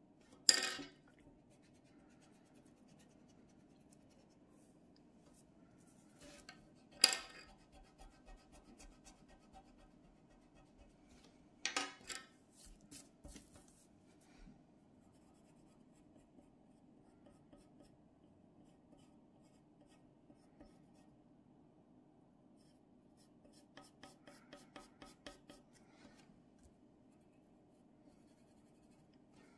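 Pencil scratching and shading on paper, with a run of quick short pencil strokes about twenty-four seconds in. Three sharp, louder sounds stand out: one about half a second in, one about seven seconds in and one about twelve seconds in. A faint steady hum lies under it all.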